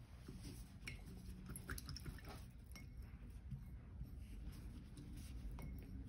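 Faint taps and clinks of a paintbrush against a glass water jar, scattered and irregular, over a low steady hum.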